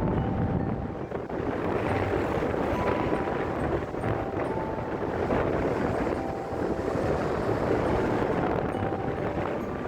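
Steady vehicle noise mixed with wind rumbling on the microphone.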